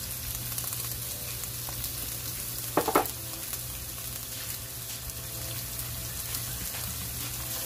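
Sliced onions and bell peppers sizzling in hot olive oil in a frying pan, a steady frying hiss, with one brief sharp sound about three seconds in.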